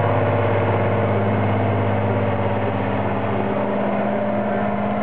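A heavy off-road trial truck's diesel engine running under load at a steady pitch as the truck crawls up a steep sandy bank.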